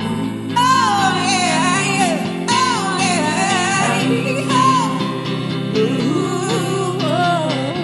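Soundtrack music: a high sung melody with a wavering vibrato over steady sustained chords.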